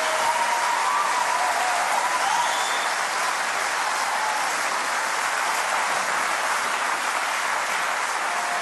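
Large studio audience applauding, a dense, steady clapping that eases slightly after a few seconds.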